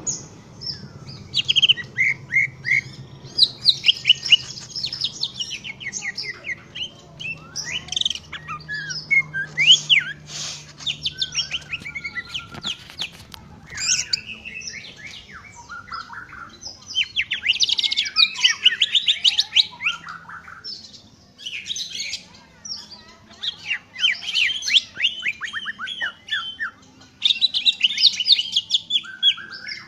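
Green leafbird (cucak ijo) singing energetically: rapid runs of chirps, trills and sweeping whistles in bursts, with short pauses between phrases.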